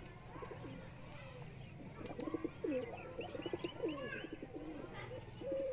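Several domestic pigeons cooing, their low coos overlapping, growing busier from about two seconds in.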